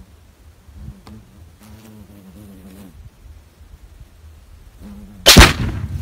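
A Tannerite-packed target filled with blue powder is shot and explodes: one sudden loud blast about five seconds in, followed by a lingering rushing rumble.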